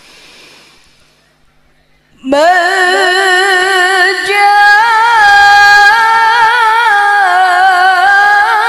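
A woman reciting the Quran in the melodic, maqam-based tilawah style, amplified through a microphone. About two seconds in she starts a long, held phrase with wavering ornamental turns in pitch.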